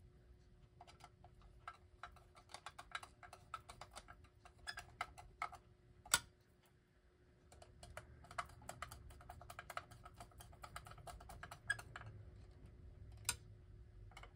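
Screws being tightened with a screwdriver to fasten a clock to its base: faint, quick clicks in irregular bursts, with a sharper knock about six seconds in and another near the end.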